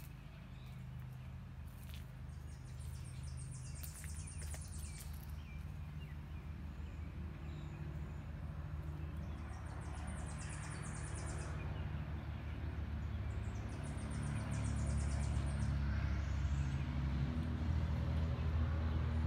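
Woodland ambience: a high, rapid buzzing trill comes three times, about 3, 10 and 14 seconds in. Beneath it runs a low rumble that grows louder toward the end.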